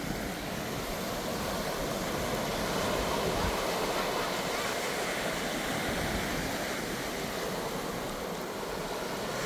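Ocean surf breaking on the shore, a steady wash of waves.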